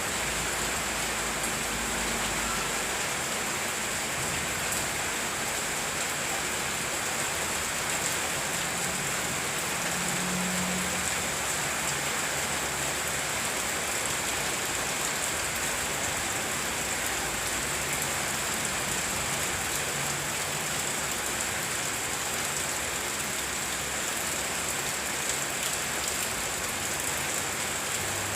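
Heavy rain falling steadily, a dense, even hiss of drops hitting surfaces.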